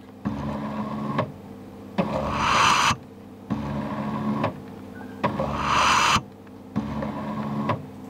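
Stepper motor of a DIY ventilator driving its belt-and-pusher mechanism against a resuscitator bag in a repeating cycle about every three seconds. Each cycle is a steady whining stroke followed by a louder, noisier stroke.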